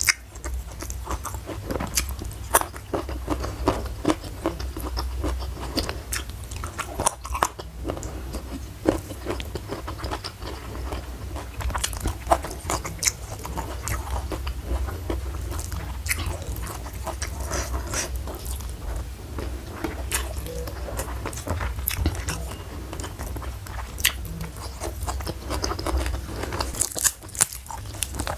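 Close-miked chewing and crunching of food, with many sharp, crisp bites at irregular intervals over a steady low hum.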